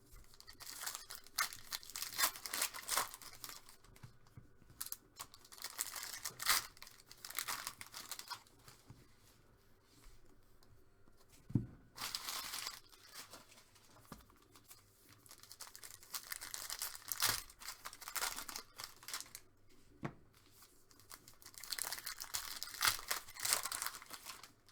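Trading card pack wrappers being torn open and crinkled by hand, in repeated spells of rustling and tearing about every five seconds, with a single sharp tap about halfway through.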